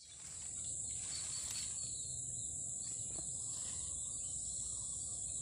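Insects chirring in one steady, high-pitched drone over a low, steady rumble of background noise.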